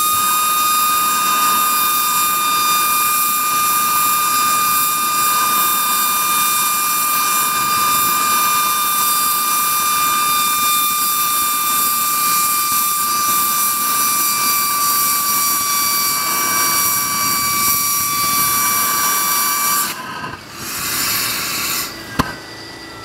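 Homemade jet noisemaker running with a loud, steady rushing hiss and a piercing whistle, its pitch sagging slightly. It shuts off suddenly about twenty seconds in, followed by a brief rush of gas and a single click.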